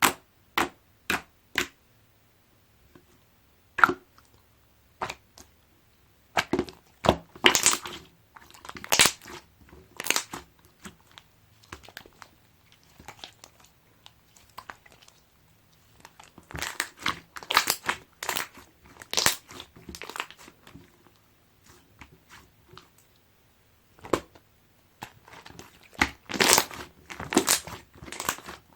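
Orange jiggly slime being squeezed and pressed by hand, making sharp wet pops and clicks. They come in spells of a few seconds with quiet pauses between.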